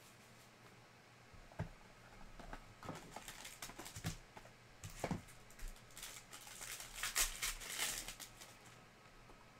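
Trading-card packaging being handled: scattered light taps and knocks of boxes and packs, then a foil pack wrapper crinkling loudly as it is pulled open about seven to eight seconds in.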